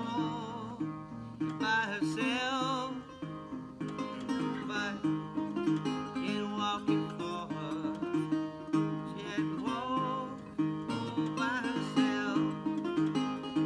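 Banjo played solo, picked with a steady repeating bass pattern under a melody, with wavering, bending high notes coming in about two seconds in and again in the last few seconds.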